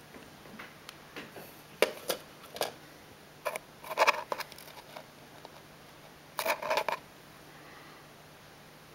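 Irregular clicks and short scraping rustles of handling noise, with two denser bursts about four seconds in and near the seventh second.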